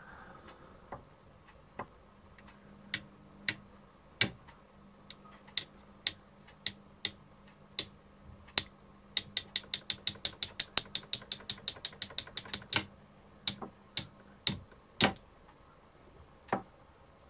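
Screwdriver shaft tapping on a car engine knock sensor, metal on metal, to make the sensor put out a signal: sharp clicks, scattered single taps at first, then a quick run of about six taps a second for a few seconds, then a few more single taps.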